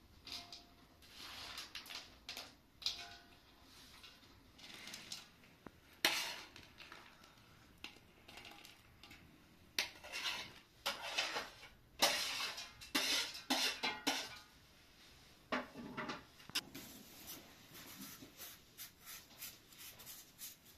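A metal spoon scraping and clinking against an enamel pan and a plate as food is served, in irregular scrapes and clinks. Near the end come quick, repeated scraping strokes of a knife peeling a white radish.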